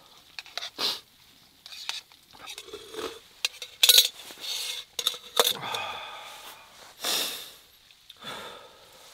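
Metal cooking cup being handled and set on a small camp stove: a string of separate clinks and scrapes, loudest about four seconds in, mixed with rustling of a down jacket.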